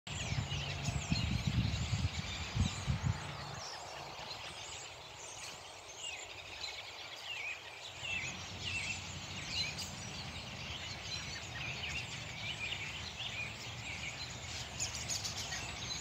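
A large flock of songbirds chirping and calling from bare treetops, many short overlapping chirps throughout. A low rumble sits under them for the first three seconds.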